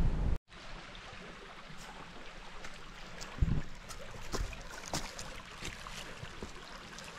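Small rocky creek trickling over stones, with a hiker's footsteps scuffing and knocking on boulders and dry leaves, one heavier step about three and a half seconds in. A brief burst of wind rumble on the microphone at the very start cuts off suddenly.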